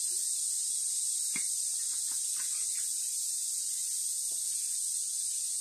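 A steady high-pitched hiss, with a few faint taps and clinks of a ladle against a plastic jar as oil is poured in.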